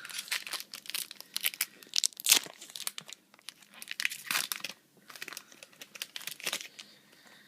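Baseball card pack wrapper being torn open and crinkled by hand, in a run of sharp, irregular crackles that die down near the end.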